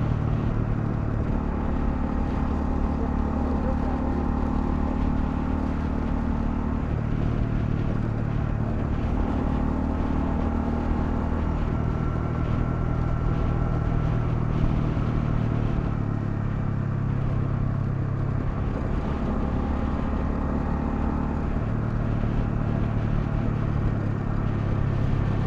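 Honda CL250's single-cylinder engine running steadily while riding. Its pitch shifts up and down in steps several times as the revs change, over a steady rush of wind and road noise.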